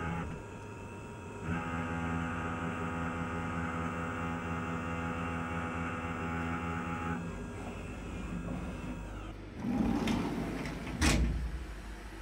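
CNC mill end mill cutting a pocket in aluminium under flood coolant: a steady pitched cutting whine for about six seconds, then the spindle running more quietly. Near the end comes a short noisy rush, then a single sharp loud clatter.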